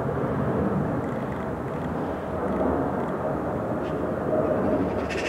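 Steady low rumble of distant urban background noise. Near the end a magpie starts a rapid rattling chatter.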